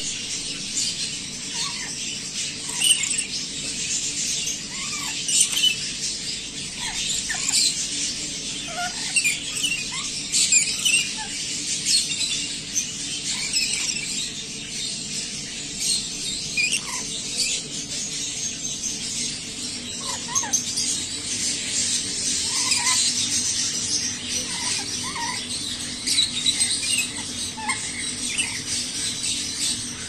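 Rainbow lorikeets chattering: a continuous stream of short, high squeaks and chirps.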